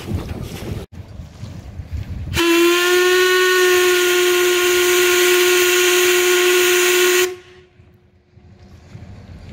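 Steam whistle of the steamboat S/S Hebe blown once: a single long blast of about five seconds, a steady note with a hiss of escaping steam. It starts about two and a half seconds in, rising slightly in pitch at the onset, and stops sharply.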